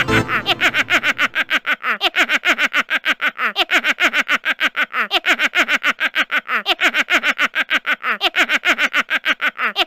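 A rapid, unbroken cackling laugh: short 'ha' syllables, about seven a second, each falling in pitch.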